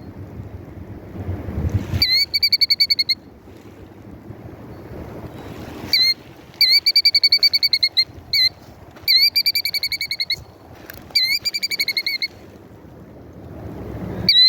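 A nesting mother bird giving alarm calls at an intruder near her eggs: each call a short rising note run into a rapid, high trill about a second long, repeated five or six times with pauses between. Wind rumbles on the microphone underneath.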